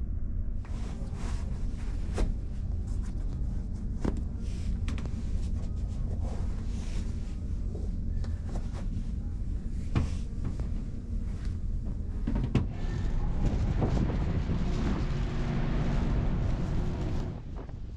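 Steady low rumble of the ferry Kyoto's engines, with scattered sharp clicks and knocks of doors and latches being opened and closed. A louder rushing hiss builds in the last few seconds and drops off near the end.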